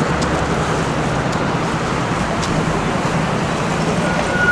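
Steady city street ambience dominated by road traffic noise. A faint, high, steady tone comes in near the end.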